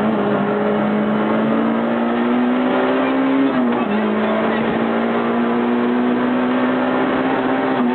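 Peugeot 106 Rallye's four-cylinder engine heard from inside the cabin, pulling hard at high revs. The revs climb steadily, drop sharply with an upshift about three and a half seconds in, then climb again.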